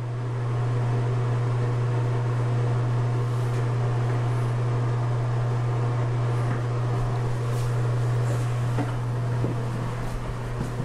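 Steady low hum of a ventilation fan, with a few light knocks and clicks near the end as a door is handled.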